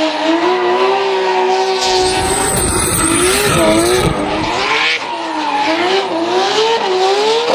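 Drift car's Nissan RB26 straight-six, built to about 1000 hp, running at high revs. The engine pitch rises and falls again and again as the throttle is worked through a slide, over the squeal of the rear tyres spinning and smoking.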